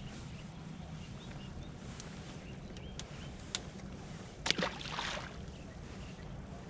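Steady low hum on a fishing boat, with scattered light clicks and a sharp knock about four and a half seconds in, followed by a brief rushing sound.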